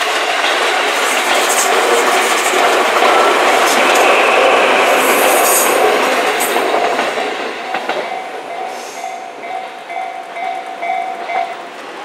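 Tobu Skytree Line commuter train passing close over a grade crossing, its wheels clattering on the rails, loudest midway and fading after about 7 seconds. As the train noise dies away, the crossing's warning bell is heard ringing in a steady, repeating ding.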